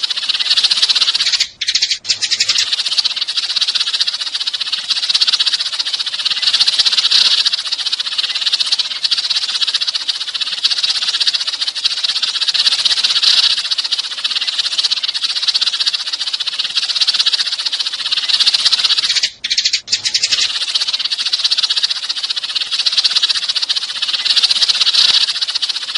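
Sparrows chirping in a dense, unbroken chatter, a lure recording used to attract sparrows; it breaks off briefly twice, once about two seconds in and again near twenty seconds.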